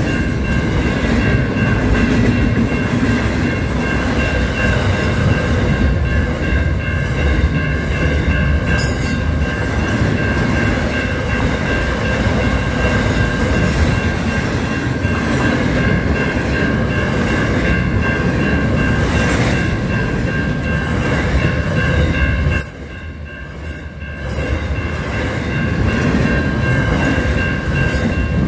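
Intermodal freight train rolling past, its container wagons rumbling and clattering over the rails, with a steady high ringing tone throughout. The rumble drops away for about a second and a half near the end, then comes back.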